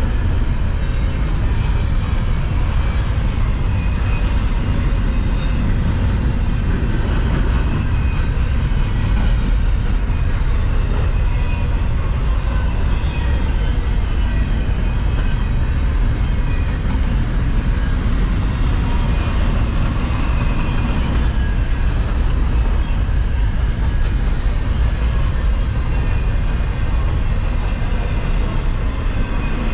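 Double-stack intermodal container cars of a freight train rolling past, with a steady rumble of steel wheels on the rails.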